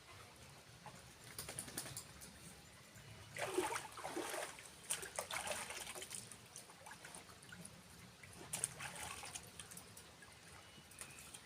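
Water trickling and splashing in short irregular bursts, loudest around four seconds in and again near nine seconds, over a faint steady rush.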